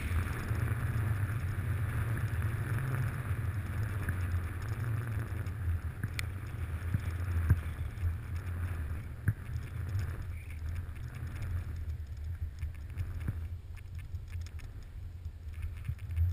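Wind rumbling on a handheld action camera's microphone while skiing downhill, over the steady hiss and scrape of skis sliding on snow, which grows quieter in the second half. A few light clicks along the way.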